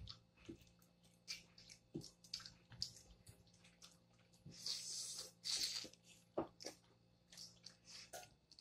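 Wet boiled peanut shells being cracked and pulled open by hand: scattered small cracks and clicks. About four and a half seconds in, a wet slurp lasts roughly a second and a half as the salty juice is sucked from a shell.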